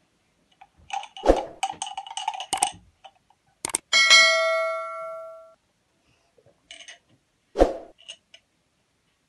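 A subscribe-button sound effect: a click, then a bell ding that rings out and fades over about a second and a half. Sharp knocks and clatter come before it and once more near the end.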